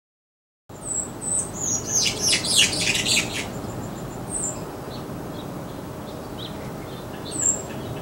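A small songbird calling: a few high, thin chirps, then a burst of rapid chattering notes lasting about a second and a half from about two seconds in, and single high chirps near the middle and near the end, over a steady low background hum.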